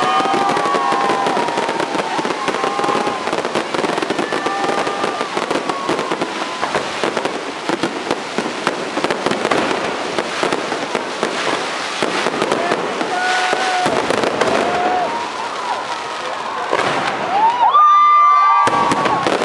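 Aerial fireworks display: a continuous dense crackling and popping of bursting shells. A few brief pitched calls rise over it, the loudest near the end.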